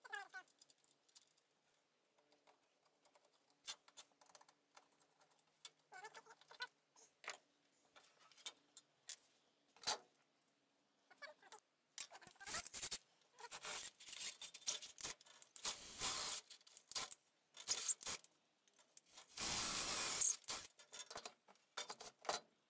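Faint clicks of small screws and fixings being handled on a wooden saw handle. About halfway in a cordless drill takes over: clattering and short bursts, then one steady run of about a second and a half near the end as it bores out the hole in the wooden saw handle.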